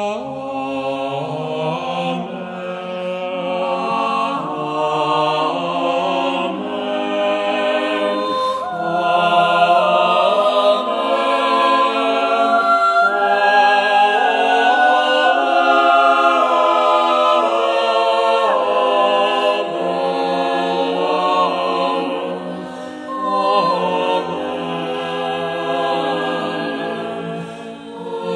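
A choir singing a slow sacred piece in long, sustained chords, swelling louder about nine seconds in.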